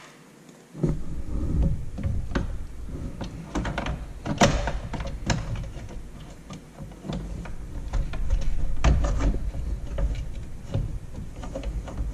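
Handling noise of the truck's engine control module (PCM), with the Pulsar module attached, being set back into its mount in the engine bay: a low rustling rumble that starts about a second in, broken by scattered clunks and clicks of plastic and metal, the sharpest about four and a half seconds in.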